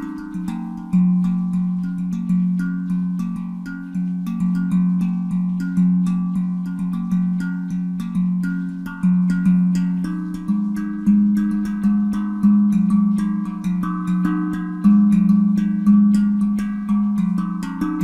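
Handpan tuned to F Phrygian at 432 Hz, played with the hands in a steady rhythm: ringing low notes accented about once a second, with quick lighter taps and higher tones in between.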